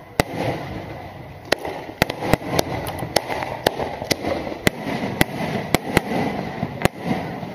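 Aerial firework shells bursting overhead: more than a dozen sharp bangs at irregular intervals, some in quick succession, over a steady low background rumble.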